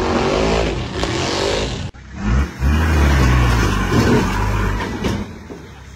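A truck's engine at high revs with a hiss of spraying mud as it ploughs through a flooded mud pit. About two seconds in this cuts to a Nissan Patrol Y61's engine revving in low, rumbling surges as it climbs a rocky creek bank, easing off near the end.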